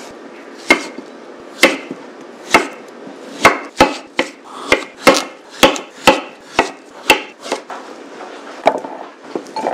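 A kitchen knife cutting through softened kabocha squash and striking a wooden cutting board, about two sharp knocks a second, weaker near the end.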